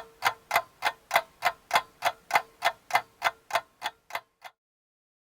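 Even, clock-like ticking, about three ticks a second over a faint steady tone, ending with two weaker ticks and stopping a little over four seconds in.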